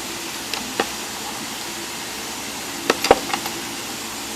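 Metal sockets clicking and knocking against each other and the toolbox drawer as they are handled and set back in place. There are two light clicks early, then a cluster of sharper knocks about three seconds in, over a steady hiss.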